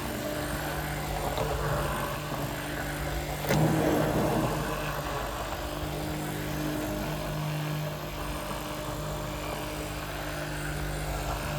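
A steady motor hum holding a low, even pitch, with a short knock about three and a half seconds in.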